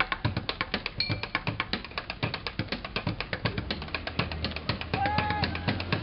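Music with a fast, busy drum beat, with a short high-pitched tone about five seconds in.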